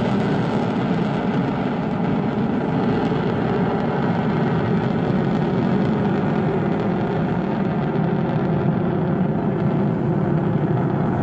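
Jet roar from a U.S. Air Force Thunderbirds F-16 flying away overhead. It is a loud, steady rush whose higher part dims near the end as the jet draws off.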